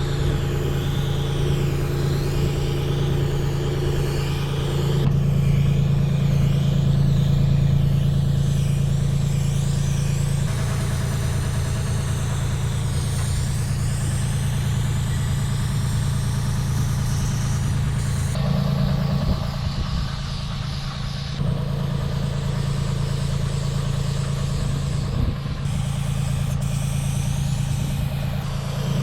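Diesel engine of a boom lift running steadily at idle, its hum shifting in pitch and loudness a few times.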